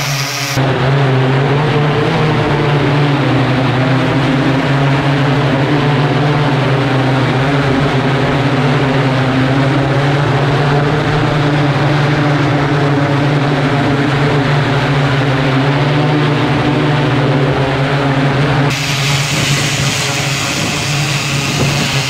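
Propellers of a large multirotor flying-car prototype hovering, a loud steady drone with a strong low hum. The higher hiss drops away about half a second in and comes back near the end.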